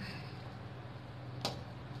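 A steel spoon clinks once, sharply, against a steel bowl about one and a half seconds in, while cream is scooped into a kadhai. A steady low hum runs underneath.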